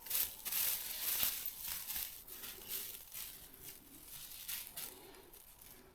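Irregular rustling and crinkling, uneven in loudness, with a few sharper crackles.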